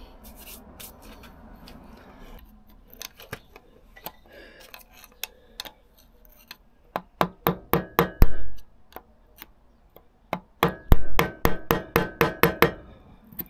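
Hammer tapping a steel punch against a tab washer on a motorcycle gearbox sprocket nut to fold it flat, metal on metal. A few light taps come first, then two quick runs of sharp, ringing strikes in the second half.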